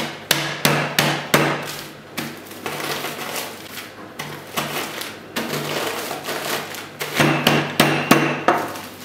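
Wooden rolling pin beating Oreo cookies inside a plastic freezer bag on a table to crush them into crumbs: a run of knocks, about three a second, then rolling and crunching over the bag, then more knocks near the end.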